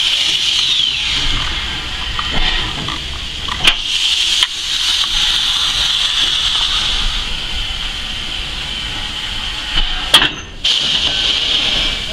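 Heritage steam train moving along the line: a steady hiss with low rumble, broken by a few sharp clicks or knocks from the running gear, two about four seconds in and one near the end.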